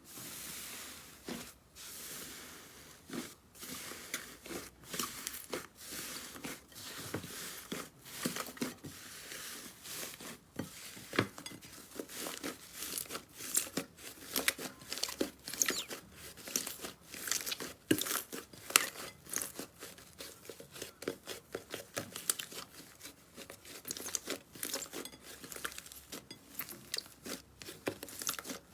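Slime being pressed and stretched by hand: a dense, irregular run of small crackles and pops.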